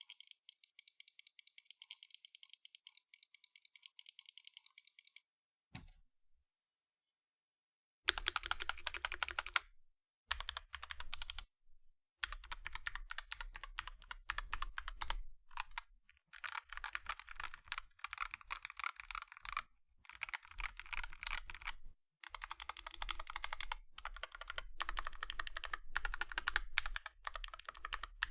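Typing on a Dark Project KD83A mechanical keyboard with Gateron Cap Teal switches. For the first five seconds there is a fast, even run of thin clicks. After a short pause, fuller typing comes in bursts of rapid key presses broken by brief pauses.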